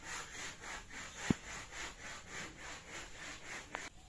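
Rhythmic dry rubbing, about three strokes a second, as jute twine is wound and pulled around a bundle of dry sticks. One sharp knock comes about a second in, and the rubbing stops near the end.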